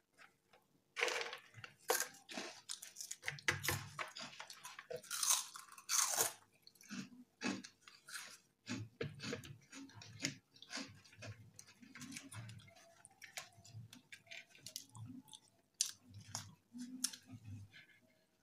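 Close-up chewing and biting of food, with crisp crunches in the first few seconds, then steady chewing at about two chews a second.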